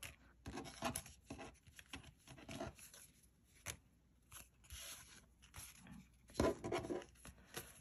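Paper sticker sheets being handled and sorted by hand: soft rustling and light taps as sheets are picked up and laid down on a tabletop, a little louder about six and a half seconds in.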